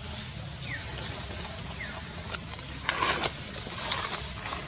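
Steady high-pitched drone of insects, with two short falling chirps in the first two seconds and a brief patch of rustling and clicks about three seconds in.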